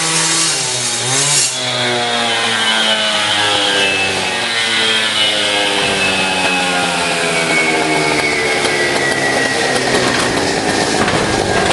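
Two-stroke Partner rotary saw with a 14-inch blade revving up in the first second or so, then cutting across a sectional garage door in one long horizontal cut. Its engine pitch sinks slowly as the blade loads up in the door.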